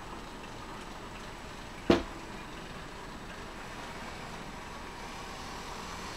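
Model diesel locomotive and its train running along the layout track with a steady rolling noise that grows a little as it comes closer. A single sharp click sounds about two seconds in.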